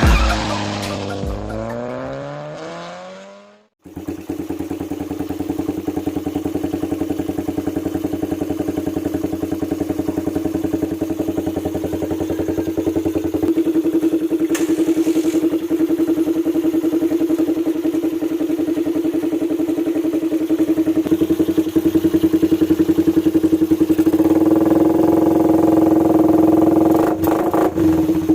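Electronic music slides down in pitch and fades out over the first few seconds. Then a Suzuki Raider 150's single-cylinder four-stroke engine idles through an aftermarket VMAX exhaust pipe, a steady, fast, even putter that grows louder and fuller about two-thirds of the way in.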